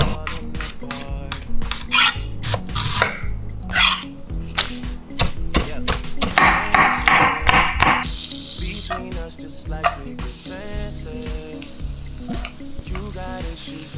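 Chef's knife chopping spinach on a wooden cutting board, a quick run of sharp chops, then from about eight seconds in a steady sizzle of chopped onion and garlic frying in butter in a pan as it is stirred with a spatula.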